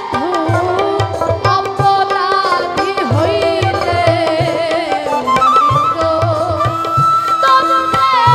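Woman singing a Baul song into a microphone, her voice wavering and ornamented, over a steady hand-drum rhythm and held accompanying notes.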